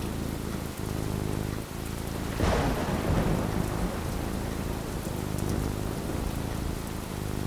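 Steady rain falling, with a thunderclap about two and a half seconds in that rumbles away over about a second.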